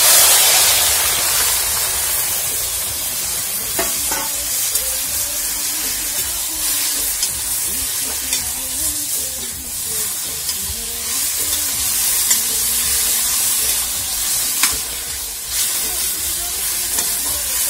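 Boiled mustard and spinach greens poured into hot mustard oil in an iron kadhai, sizzling loudly the instant they go in and then hissing steadily as they fry and are stirred with a spatula. The spatula clicks against the pan a few times.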